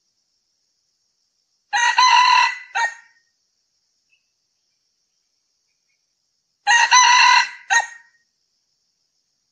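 Male red junglefowl crowing twice, about five seconds apart. Each crow is a short, clipped cock-a-doodle ending in a brief separate final note.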